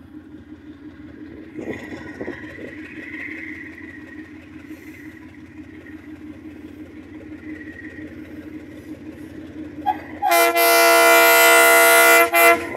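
Ex-Fiat diesel locomotive hauling a freight train, its engine running steadily as it approaches. About ten seconds in comes one long horn blast of about two seconds, much louder than the engine.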